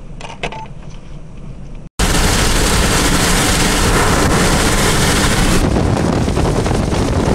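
Strong wind blasting the microphone: loud, even rushing noise that starts abruptly about two seconds in, after a short stretch of quieter noise with a few sharp cracks.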